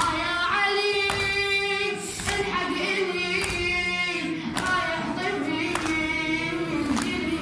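A boy chanting a Shia mourning elegy (latmiya) in shur style into a microphone, holding long, wavering notes. Sharp strikes about every 1.2 seconds keep the beat.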